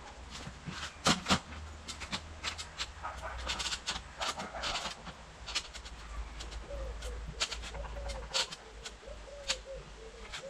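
Scattered sharp knocks and taps of timber being handled on a wooden shed frame. A pigeon starts cooing over them about two-thirds of the way in.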